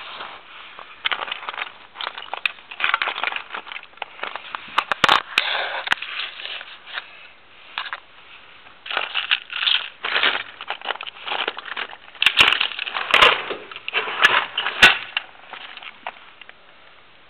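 Rummaging through a toolbox of small metal parts and fittings: pieces clattering, clinking and scraping against each other in irregular bouts, with some sharper knocks.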